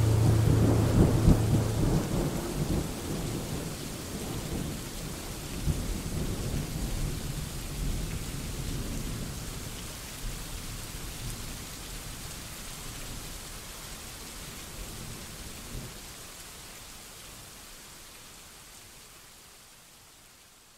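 Rain falling with a deep rumble, loudest in the first few seconds and then fading gradually away to near silence by the end. A held musical chord dies out about two seconds in.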